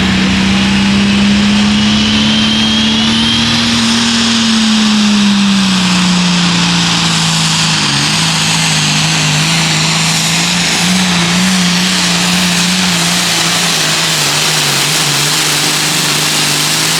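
Hot farm pulling tractor's engine running hard under load during a pull. Its pitch climbs a little over the first few seconds, drops about five seconds in, then holds steady and slightly lower.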